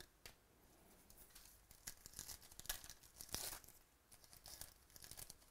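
Faint crinkling and rustling of trading cards and their packaging being handled, in a run of short crackly strokes from about two seconds in.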